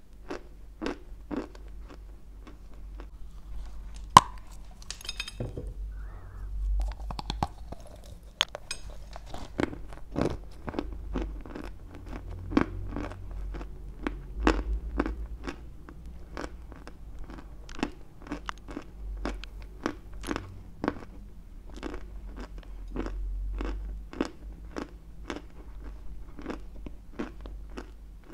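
Close-miked chewing of a chunk of white Turkestan chalk: a crisp crunch with each chew, about two a second. A single sharp crack stands out about four seconds in.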